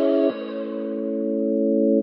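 Instrumental music with no voice: held keyboard chords. A new chord comes in about a third of a second in and grows steadily louder until it cuts off sharply at the end, when the next chord begins.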